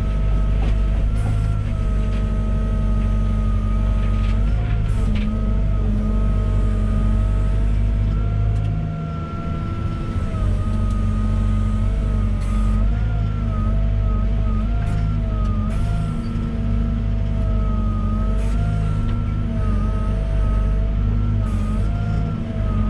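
Volvo EWR150E wheeled excavator at work: its diesel engine runs steadily under load, with a whine that dips and bends slightly in pitch now and then. A few short knocks sound over it.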